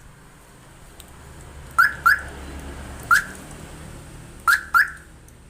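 Aftermarket car alarm siren giving short chirps, each a quick upward sweep: two, then one, then two more. These are the alarm's lock/unlock confirmation chirps. A faint low hum runs underneath.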